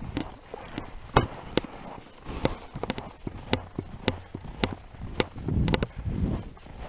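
Footsteps crunching in snow, a short crisp crunch about every half second, with a louder muffled rustle near the end.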